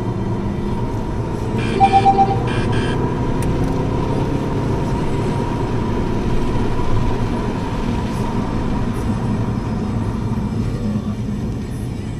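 Car driving heard from inside the cabin: steady engine and tyre noise, the engine pitch rising as it picks up speed in the first few seconds. About two seconds in comes a quick run of four short, high beeps.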